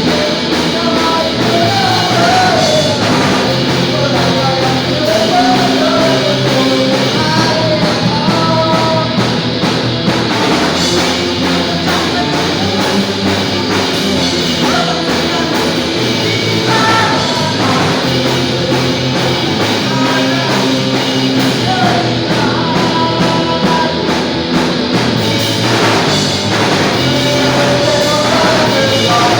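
Punk rock band playing: distorted electric guitar, bass and drums, with a sung vocal line.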